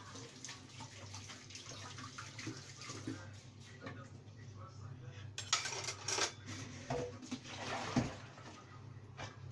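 Washing up at a stainless steel sink: tap water running while metal pots, bowls and utensils clatter and scrape, with a few louder clanks in the second half.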